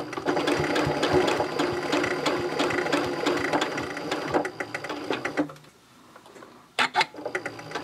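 Janome Continental M7 Professional sewing machine stitching a seam through layered fabric: a rapid, even run of stitches that stops about five and a half seconds in, followed by a few separate clicks.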